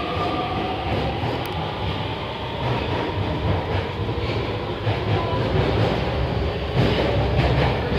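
Beijing Subway Line 2 train pulling out of the station: its electric traction motors whine, rising slightly in pitch and fading about a second in, over a steady rumble of the train running.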